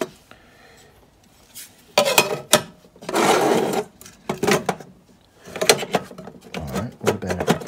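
Handling noise from a stepper motor driver being moved around inside a metal rack-mount enclosure: scattered knocks and clicks as it is set down and shifted, and one scraping slide a little after three seconds.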